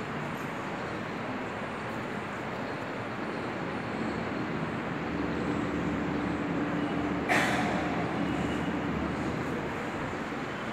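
Steady background noise, a rumble and hiss without speech, with a faint steady hum in the middle and a single sharp knock about seven seconds in.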